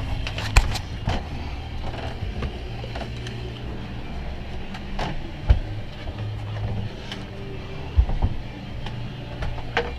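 Scattered knocks and clicks of hose and plumbing parts being handled, the sharpest about five and a half and eight seconds in, over a steady low rumble.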